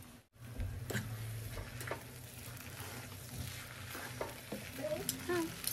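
Noodles sizzling in a hot nonstick pan as they are tossed with two forks, the metal tines clicking and scraping against the pan now and then. The sizzle starts about half a second in.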